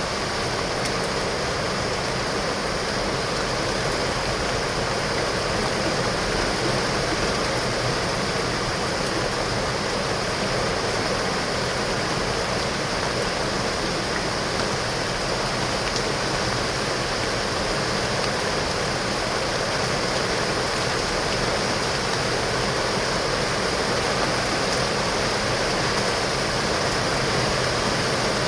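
Heavy, torrential rain falling on window glass: a steady, unbroken hiss with no let-up.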